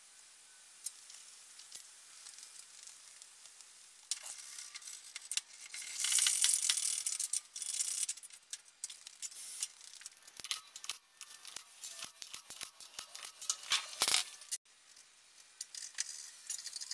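Metal hand tools and parts clinking and rattling in quick, irregular clicks and knocks during work on a truck's front axle, with a hissing rush lasting about a second and a half, about six seconds in.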